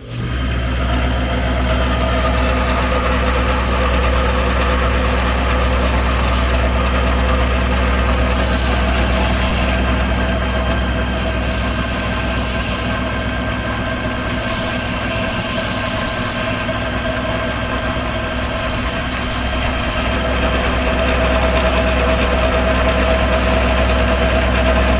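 Small metal-turning lathe running while it cuts a steel fitting down to size. A steady motor hum starts suddenly and runs throughout, with a high cutting hiss that comes and goes every second or two.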